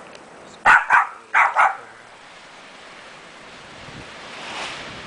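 A Cavalier King Charles Spaniel barking four times, in two quick pairs about a second in, then a hiss of wind rising near the end.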